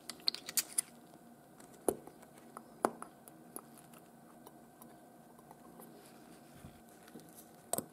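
Small sharp clicks and taps of a watchmaker's hand tools and watch-case parts being handled: a quick cluster near the start, two louder clicks about two and three seconds in, a few faint ticks, and one more click near the end.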